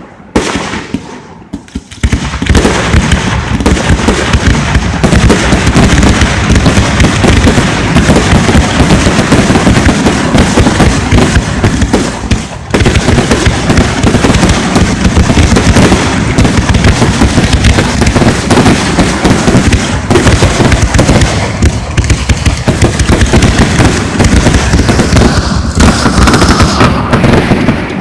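Fireworks display going off in a dense, continuous barrage of bangs and crackle, very loud, starting about two seconds in with a brief lull near the middle.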